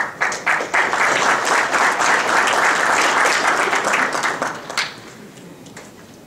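Audience applause, many hands clapping together, starting abruptly and dying away about five seconds in.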